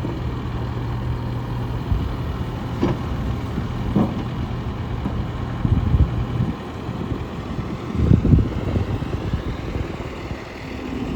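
John Deere 310K backhoe loader's diesel engine idling steadily, with a few short, louder low rumbles about six and eight seconds in.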